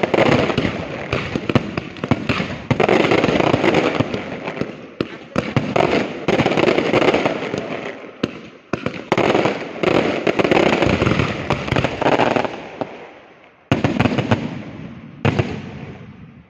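Fireworks display: dense, rapid bangs and crackling in repeated waves, thinning out near the end with two last loud bursts before dying away.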